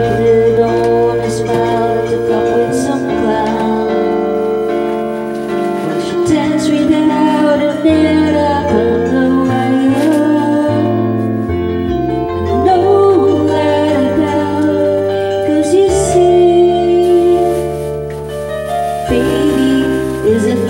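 A woman singing karaoke into a corded microphone over backing music, with a wavering vibrato on her held notes.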